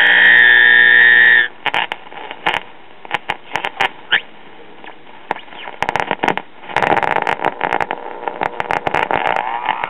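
Vintage battery-powered tube radio's speaker giving static, with a loud steady buzzy tone for the first second and a half, then scattered crackles and pops over a faint hiss, and a buzzy tone coming back about seven seconds in that rises in pitch near the end. The set is barely receiving anything and needs servicing.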